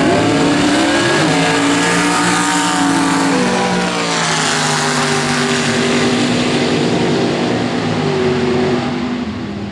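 Two drag-racing cars running a quarter-mile pass at full throttle. The engine pitch climbs and drops sharply about one second and three and a half seconds in at the gear changes, then holds steadier and fades near the end as the cars reach the far end of the track.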